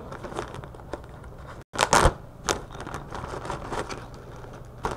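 Wrapping crinkling and rustling as it is handled by hand, in irregular bursts, with the loudest crinkle about two seconds in.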